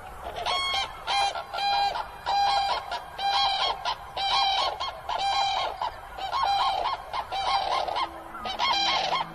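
A pair of common cranes giving their unison call, a pair-bonding duet. A run of repeated bugling calls comes a little over once a second, with the two birds' notes overlapping and doubling.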